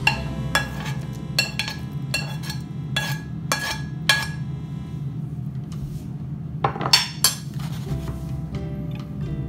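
Background instrumental music: bright plucked, bell-like notes over a steady low hum, thickest in the first few seconds and again briefly about two-thirds of the way through.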